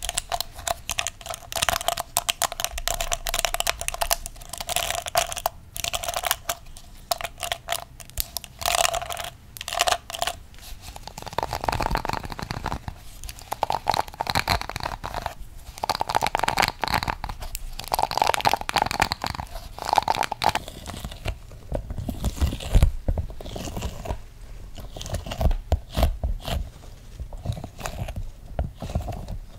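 ASMR trigger sounds: a unicorn comb handled and scratched, giving dense crackly clicks. About twenty seconds in, this changes to toy dinosaurs being handled, with low knocks and thumps.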